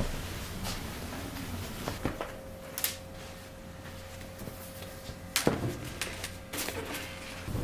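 A few sharp knocks and clicks of household objects being handled, like drawers or cupboard doors, with a faint steady tone from about two seconds in until near the end.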